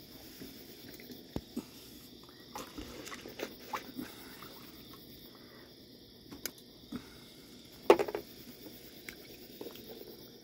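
Raccoons eating crackers on a wooden deck: scattered crunches, taps and scrapes, with one louder noise about eight seconds in.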